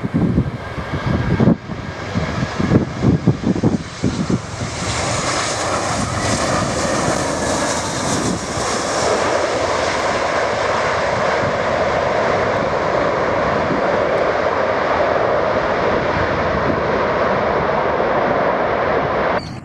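Wind buffeting the microphone for the first few seconds, then the jet engines of an Airbus A320-family airliner swelling to a loud, steady rush as it rolls out on the runway after touchdown. The sound cuts off suddenly near the end.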